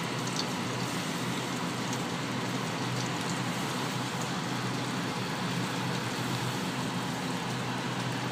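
Steady, even hiss of outdoor ambience in a snowstorm, with no distinct events standing out.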